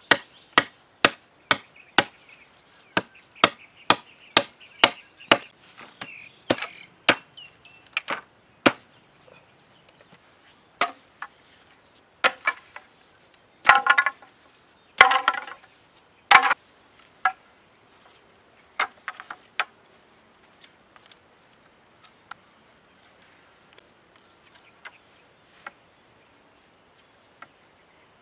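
Green bamboo being chopped with a blade: sharp strikes about two a second, then a run of louder, clustered knocks and cracks about halfway through, thinning out to sparse faint ticks near the end.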